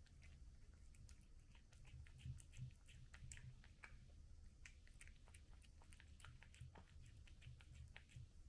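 A cat chewing its food: a quick, irregular run of faint crunching clicks, over a steady low hum.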